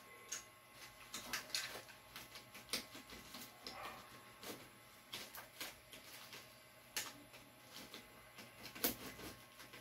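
Cutter blade scraping and clicking against the tight plastic wrapping of a clothing bale: irregular small scrapes and clicks as it is worked at by hand.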